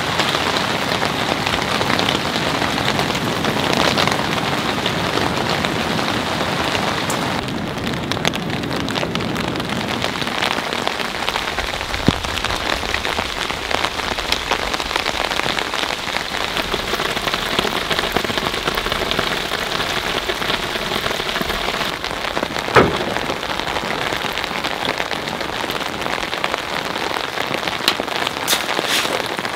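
Rain falling steadily on a surface, with a few louder single drops striking, the loudest about two-thirds of the way through.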